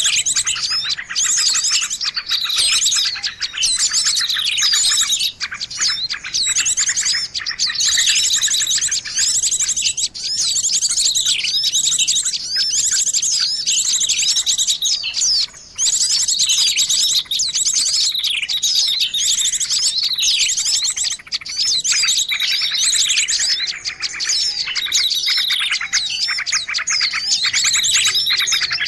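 A dense, noisy chorus of many small birds chirping and trilling at once, high-pitched and without pause, as used in a bird-luring (pikat) recording. Some lower whistled notes join near the end.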